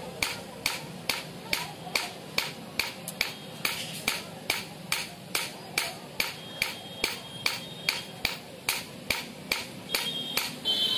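Hand hammer striking a steel sickle (hasiya) blade held on an anvil, a steady run of ringing metal-on-metal blows at about two a second.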